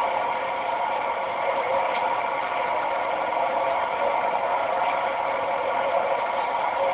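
Motorcycle engines running steadily, heard muffled, played through a small computer speaker and re-recorded on a phone.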